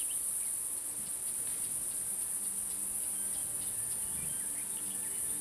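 A continuous high-pitched chorus of crickets at dusk, an even unbroken trill. Faint low sustained tones sit underneath from about a second and a half in.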